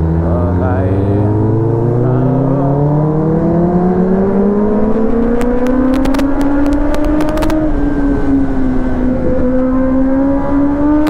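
Kawasaki Ninja ZX-10R sportbike's inline-four engine heard from the rider's seat, accelerating hard with its pitch rising steadily for about seven seconds, then easing off and holding a steady cruise.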